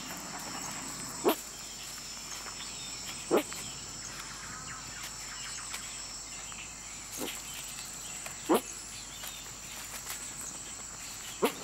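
Rainforest insects shrilling in a steady high buzz, broken by about five short, sharp sounds at irregular intervals that stand out as the loudest things heard.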